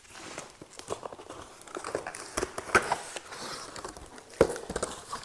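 A cardboard shipping box being opened by hand, with the tape tearing, the flaps pulled back and the plastic bags of chimney-brush parts inside crinkling. It comes as irregular rustling with scattered clicks and two sharper knocks, the first about three seconds in and the second a little over four seconds in.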